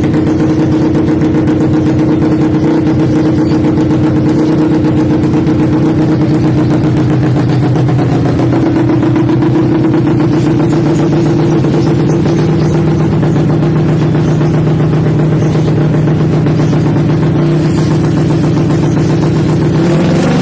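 Race-tuned four-stroke underbone motorcycle engine with an aftermarket racing exhaust, idling steadily at an even pitch.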